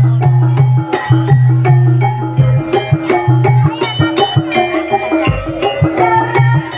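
Jaranan gamelan music: quick drum strokes over short, repeating struck-metal notes, with a low sustained tone that breaks off and returns several times.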